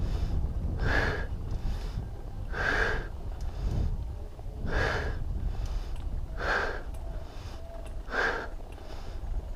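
A cyclist breathing hard and evenly while riding, with one strong exhale about every two seconds, over a steady low rumble.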